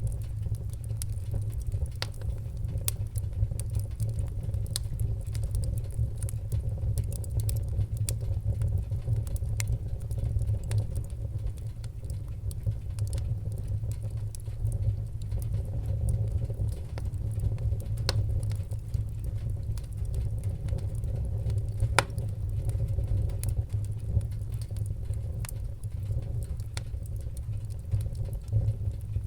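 Wood-burning fire crackling, with scattered sharp pops over a steady low rumble; one pop about twenty-two seconds in is louder than the rest.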